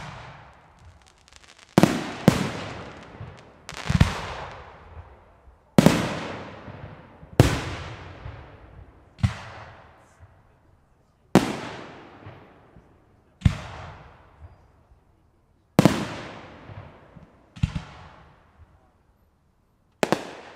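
Aerial firework shells bursting: about a dozen sharp bangs, roughly one every two seconds, each dying away in a long echoing tail.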